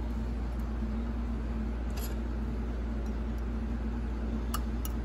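Steady low hum with a few faint, light clicks about two seconds in and twice near the end, as a small retaining clip is worked into the groove that holds a valve's end plug in an E4OD/4R100 transmission pump.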